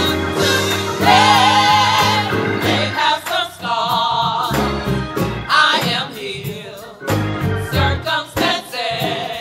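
Gospel praise team of women singing phrase by phrase, backed by keyboard and electric guitar.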